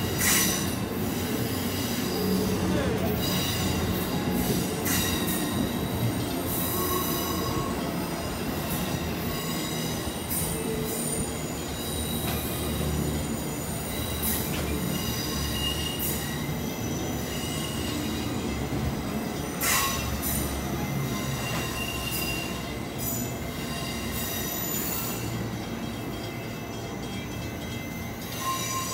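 Amtrak Amfleet passenger coaches rolling past a station platform: a steady rumble of steel wheels on rail with high-pitched wheel squeal and a few sharp clacks. It fades a little near the end as the last car goes by.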